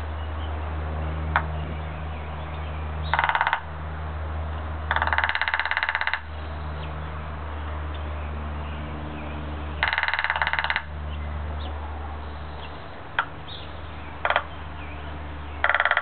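Downy woodpecker drumming on a dead timber bamboo cane: five quick rolls of rapid taps, the longest over a second, with a couple of single taps between them. A steady low hum runs underneath.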